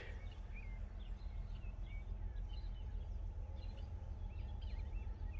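Outdoor background: a steady low rumble with faint, scattered bird chirps throughout.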